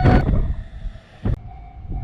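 Low rumble of a train that fades out within the first half second. About a second later there is a single click, and after it a quieter low hum with a faint steady tone.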